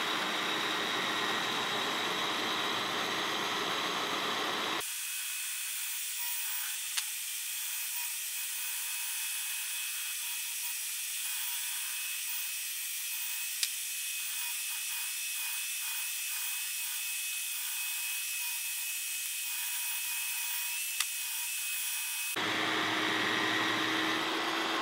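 Mafell Z5Ec portable bandsaw, mounted upside down as a table bandsaw, running and cutting a curved profile through a block of wood. About five seconds in the sound turns suddenly thinner, without its low end, with a few sharp clicks, and turns full again near the end.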